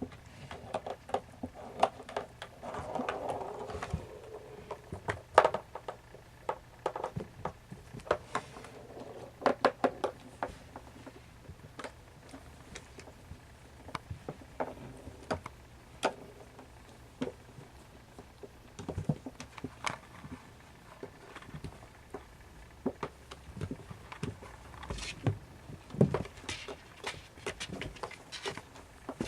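Siamese kittens playing: irregular light taps, patters and scrabbling, with a few sharper knocks scattered through.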